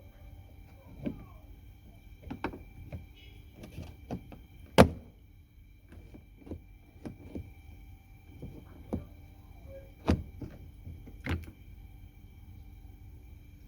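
Scattered clicks and knocks of a Mercedes exterior door handle being worked and pulled out of the door, the loudest a single sharp knock about five seconds in. A faint steady whine runs underneath.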